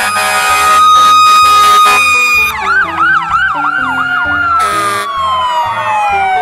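Sirens of fire engines and a rescue truck. A steady high tone gives way about two and a half seconds in to a fast rising-and-falling yelp, which slows into a long falling wail, and a new wail starts rising near the end. Background music with a bass line runs underneath.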